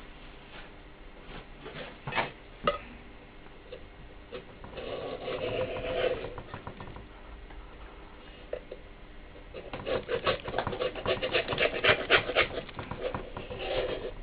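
A flat metal blade scraping around the rim of a Dynaudio 21W54 woofer's basket where the surround is glued, in bouts of quick strokes. Two sharp clicks come about two seconds in, and the longest run of rapid scraping comes from about ten to twelve and a half seconds.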